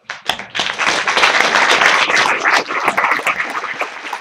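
Audience applauding: many hands clapping together, building up quickly in the first half second and easing off a little near the end.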